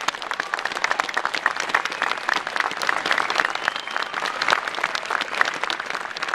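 A large crowd applauding, with many hands clapping in a dense, steady patter.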